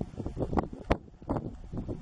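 Wind buffeting the microphone in irregular gusts, a rumbling, uneven rush with sharp peaks.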